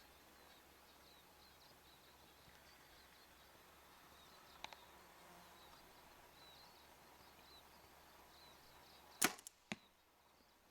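A bow shot: after a long quiet stretch with faint high chirping, a sharp crack of the string about nine seconds in, followed half a second later by a second, shorter crack as the arrow strikes.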